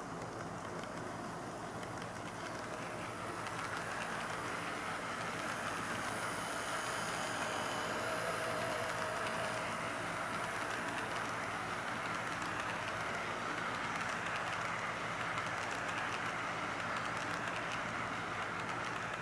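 KATO N-gauge Tokyu 5000 series model train running past on its track, a steady motor whir and wheel rumble. It grows louder a few seconds in as the cars pass close, then eases slightly near the end.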